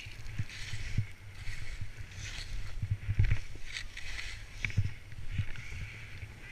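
Skis hissing through deep powder snow in a run of swishes, about one every half second, with dull low bumps heard close to the skier.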